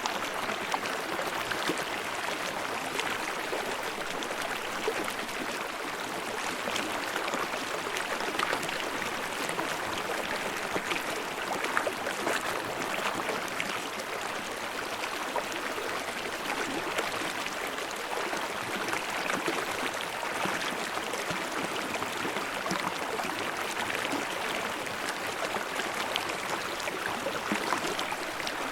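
A babbling stream: water rushing and gurgling steadily over rocks.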